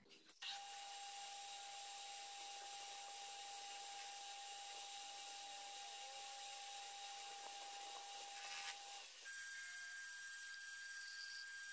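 Milling machine running and cutting steel, a steady hiss with an even whine that steps up to a higher pitch about nine seconds in.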